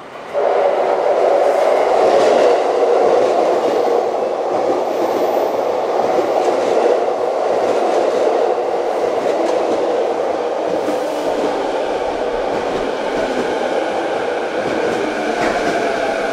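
A JR East E233-series 7000-subseries electric train pulls into the platform. The loud rush of its running noise starts suddenly about half a second in and continues steadily. In the second half, the whine of its Mitsubishi IGBT inverter comes through as the train slows.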